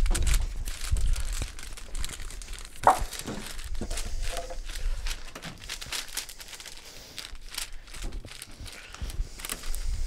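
A sheet of paper crinkling and crackling as it is pressed and smoothed by hand around a steering wheel rim, with one louder crackle about three seconds in.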